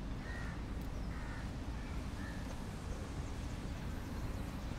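A crow cawing three times in quick succession, over a steady low rumble of background noise.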